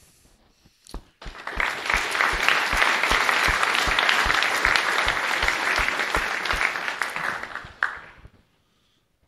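Audience applauding, starting about a second in, holding steady and dying away near the end. A steady beat of about three claps a second stands out beneath it.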